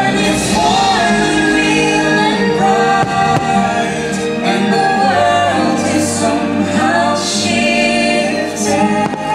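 Fireworks-show soundtrack: orchestral music with singing voices holding long notes.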